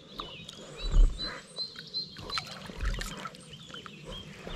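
Small birds chirping with short, repeated high notes, over low thumps, the loudest about a second in and another near the three-second mark, and light clicks from handling.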